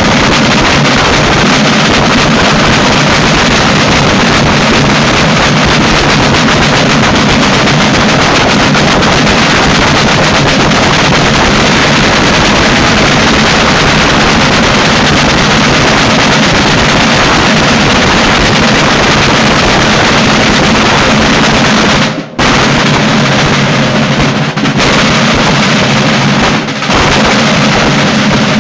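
Several large Sicilian festival drums (tamburi) played together with sticks in a fast, dense, unbroken drum roll, loud throughout. The drumming cuts out for an instant about 22 seconds in, then goes on.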